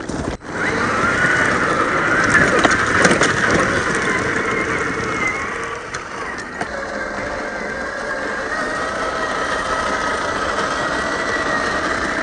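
Traxxas TRX4 RC crawler's Holmes Hobbies 550 21T brushed electric motor and geared drivetrain whining as it drives, the pitch wandering up and down with the throttle. The sound starts abruptly about half a second in.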